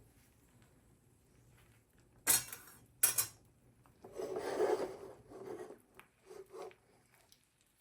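Metal cookware being handled on the stove: two short sharp clinks a little after two and three seconds in, then a longer scraping rub for about a second and a half, with a few small knocks after it.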